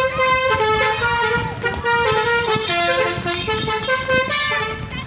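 Tour bus 'telolet' musical air horn playing a melody: a run of loud horn notes stepping up and down every fraction of a second, dipping lower about halfway through.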